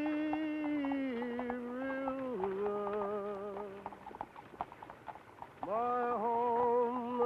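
Horse hooves clip-clopping at a walk. A slow melody of long held notes plays over them: it steps down in pitch, breaks off a little past the middle, then comes back with a wavering held note near the end.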